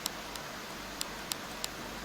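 Steady low hiss with five faint, short, high clicks scattered through it; no snore is heard.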